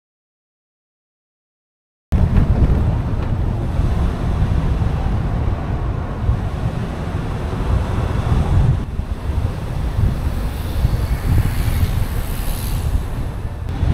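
Silent for about two seconds, then wind buffeting the microphone of a camera mounted on the outside of a moving vehicle, a heavy low rumble with road noise. A brighter hiss rises briefly near the end.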